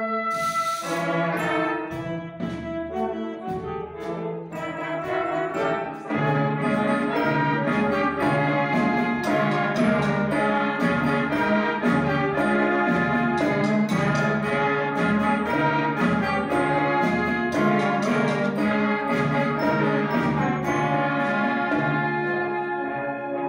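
Youth concert wind band playing, with clarinets and brass over regular percussion strikes. There is a short percussion crash about half a second in, and the full band grows louder about six seconds in.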